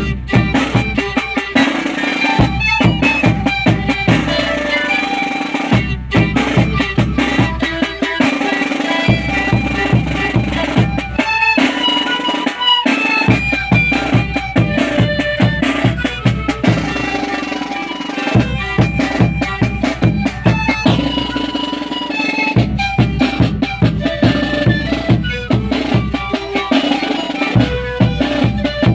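Andean zampoña (panpipe) ensemble playing a tune, with a big bass drum and a snare drum beating along.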